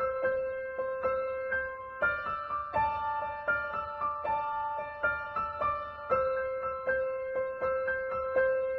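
Background piano music: gentle, evenly paced notes over held chords, the chord changing about two seconds in and again about six seconds in.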